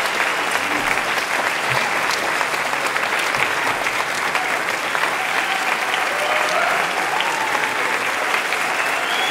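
Concert audience applauding steadily, with a few voices calling out over the clapping.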